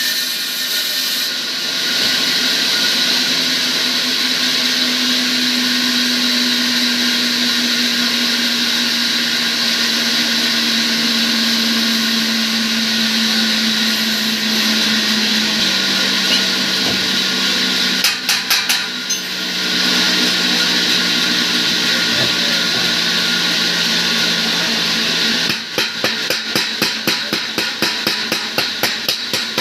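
A power tool's motor running steadily with a strong hiss, its hum sinking slowly in pitch. About three-quarters of the way in, a fast, even run of sharp taps begins, several a second, like hammering on metal.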